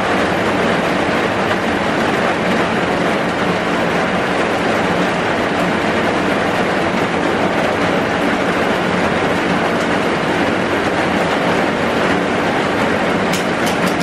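Heavy rain falling steadily on and around a bus shelter, a dense, even hiss with no let-up, and a few faint ticks near the end.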